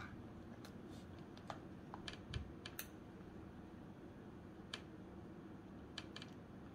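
Chopsticks clicking against a plastic bento lunch box as food is picked up: a scattering of light taps, grouped a couple of seconds in and a few more later, over quiet room tone.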